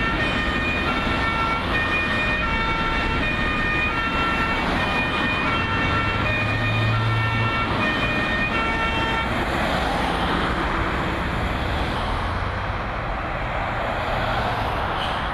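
Two-tone emergency vehicle siren alternating between two pitches over a steady rushing noise. The siren stops about nine seconds in, leaving the rushing noise.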